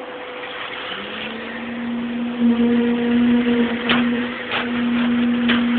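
Wet concrete sliding and pouring down a metal chute, over a steady mechanical hum that comes in about a second in and holds.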